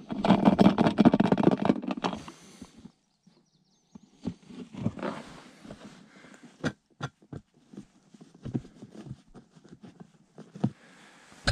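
Rustling and clicking of a turkey decoy being handled and rubbed close against the microphone, loud and dense for the first two seconds. After a brief hush, lighter rustles and scattered sharp clicks follow as the decoy is held and turned.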